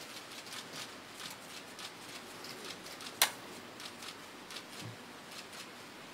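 Faint rustling and small ticks of paper and pen being handled at a desk, as a register is signed and passed over. One sharp click about three seconds in is the loudest sound.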